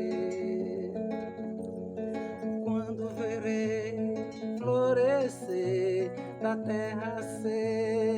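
Music: plucked acoustic guitar over a stepping bass line, in a passage between sung lines, with a louder wavering melody about five seconds in.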